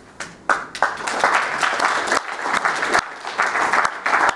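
Audience applauding: a few scattered claps at first, then filling out into steady clapping within the first second.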